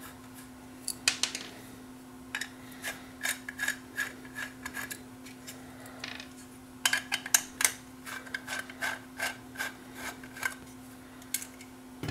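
Hand screwdriver backing small screws out of the aluminium case of a 5-watt FM stereo transmitter: irregular runs of small metallic clicks and scrapes as the tip turns in the screw heads.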